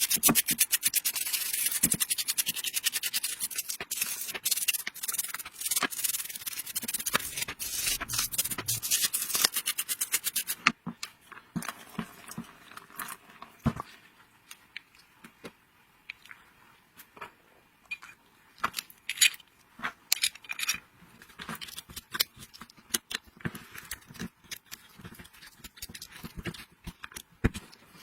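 Rapid, even scraping strokes of a hand tool on a hard surface for about ten seconds, stopping abruptly; then scattered light clicks and taps of small parts being handled.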